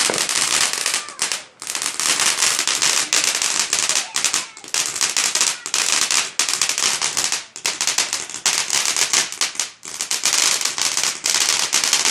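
Fireworks crackling: a dense, rapid run of many small loud pops, broken by a few short pauses.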